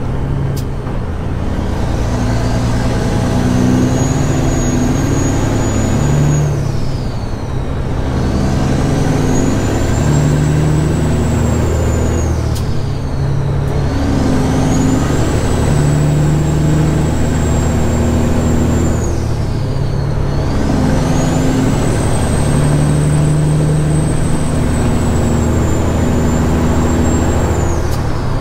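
Straight-piped CAT 6NZ (3406E) inline-six diesel in a semi truck pulling through the gears, heard from inside the cab. A high turbo whistle climbs and holds through each pull, then drops away at every shift, about every six to seven seconds.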